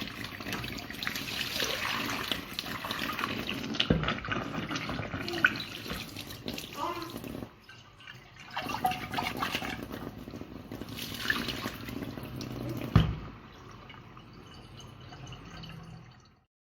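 Tap water running and splashing in a sink while the water in lucky bamboo vases is changed. The flow pauses briefly about halfway through and dies away near the end. Two sharp knocks are heard, one about four seconds in and a louder one near thirteen seconds.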